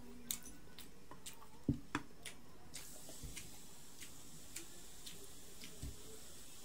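A canned drink being handled and poured into a drinking glass: clicks and a couple of knocks in the first two seconds, then a soft steady pour with light ticks from about three seconds in.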